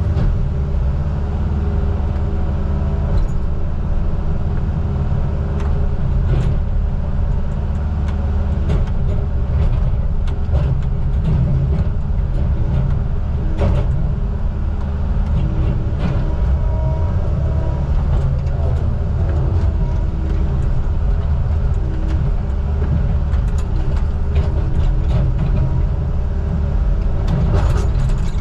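Truck engine running steadily, a deep, constant drone with light clicks and rattles scattered through it.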